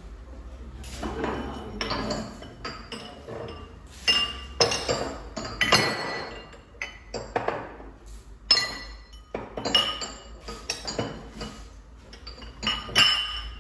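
Drinking glasses clinking and knocking together as they are taken out of a kitchen cupboard and handled: many sharp chinks, some ringing briefly, busiest from about four seconds in.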